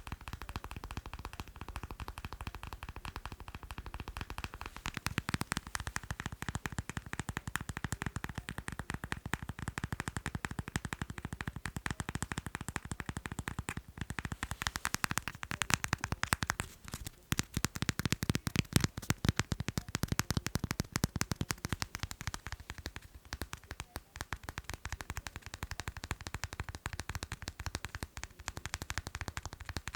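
Fast, continuous tapping on macarons: a dense run of rapid light taps, many per second.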